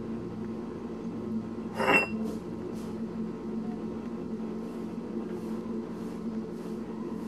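A ceramic dish clinks once, sharply and ringing, about two seconds in as a rabbit knocks it on a concrete floor. After that come faint, soft, repeated ticks of the rabbit chewing blueberries, over a steady low hum.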